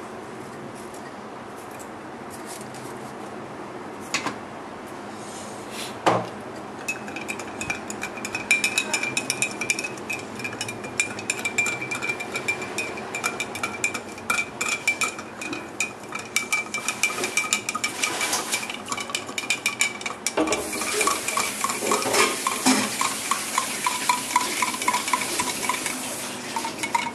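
A metal spoon stirring salt into water in a glass mug, clinking and scraping rapidly against the glass. Before the stirring starts about seven seconds in there are only a couple of single knocks.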